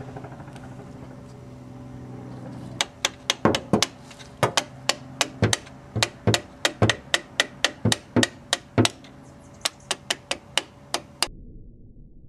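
Hammer tapping on the top of the steel pinion (cross) pin in an MGB's Salisbury differential: a series of sharp metallic taps, about three a second, that starts a few seconds in and stops suddenly near the end.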